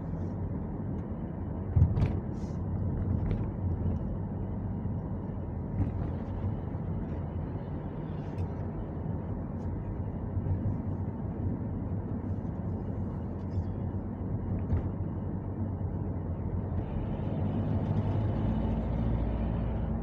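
Engine and road noise of a car being driven, heard inside the cabin, with a sharp click about two seconds in; the noise grows louder near the end.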